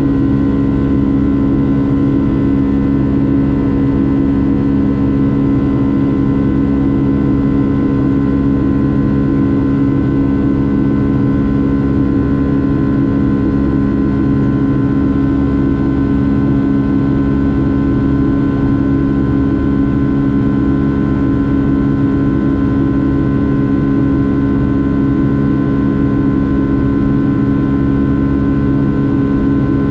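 Boeing 757-300 jet airliner running steadily: a constant engine drone with several held tones over a low rumble, unchanging throughout.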